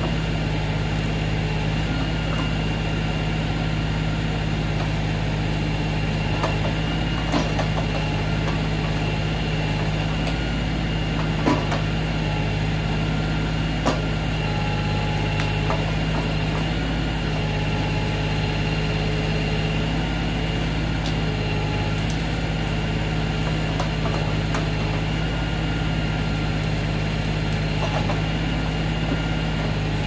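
LS XR3135 compact tractor's diesel engine running steadily while its backhoe digs out stumps and roots, with a few short knocks along the way.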